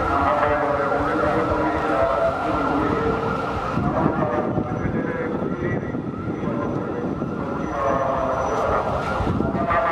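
A motorcade of cars and escort vehicles passing slowly, with a siren sounding.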